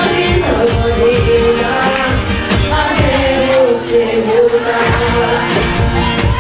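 Live song through a PA: a boy singing into a microphone, holding long notes, with an acoustic guitar over a steady beat.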